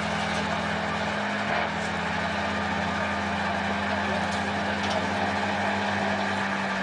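A vehicle engine running steadily at an even pitch under a wash of noise. The engine note shifts slightly about a second and a half in.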